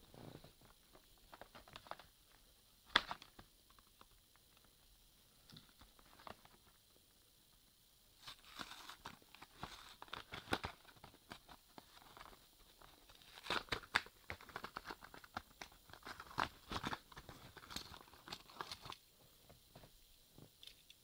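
Plastic blister packaging of a boxed toy engine being handled and torn open: crinkling, tearing and sharp clicks. There are a few scattered clicks at first, and it gets busy for about the last ten seconds as the package is worked open.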